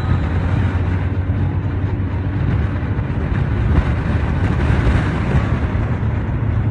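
Steady low rumble of a car driving, heard from inside the cabin, with no breaks or sudden sounds.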